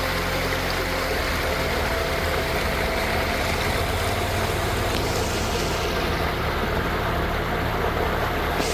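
Steady rushing of the Sheep River's fast-flowing water, an even, unbroken hiss.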